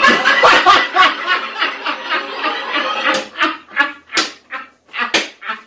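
Comedy-club audience laughing together, then men laughing hard in short separate bursts, about two a second, from about three seconds in.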